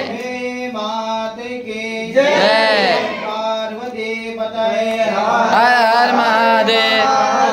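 Voices chanting Hindu devotional call-outs around a havan fire, in long, sing-song phrases that swoop up and down in pitch, with a louder phrase starting about two seconds in and another about five seconds in. A steady low tone hums underneath.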